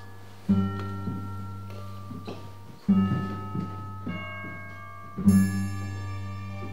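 Suspense film score: a deep note struck three times, about every two and a half seconds, each one ringing out and fading, with softer higher notes in between.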